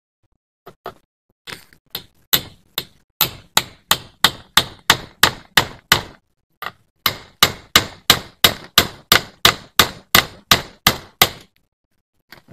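Rapid series of sharp striking blows, about three a second, like a tool being hammered or chopped against something solid; a brief pause about six seconds in, then the blows resume and stop shortly before the end.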